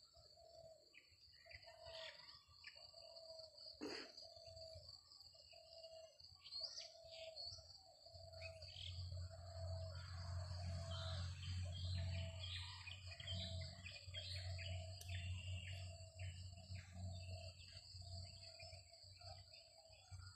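Small birds chirping and twittering over steady high-pitched tones, with a single mid-pitched note repeating about once a second. A low rumble comes in about eight seconds in and fades near the end.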